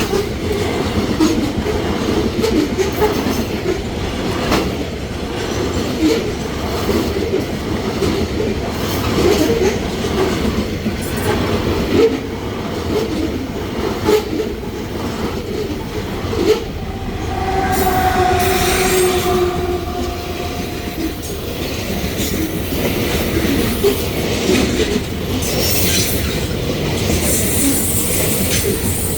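Freight train wagons rolling past over the rails, a steady rumble with irregular knocks from the wheels. A squeal with two steady notes joins for about three seconds around two-thirds of the way through.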